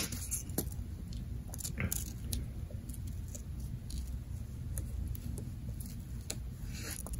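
Scissors snipping through printer paper in short, scattered cuts, with light paper handling, over a low steady hum.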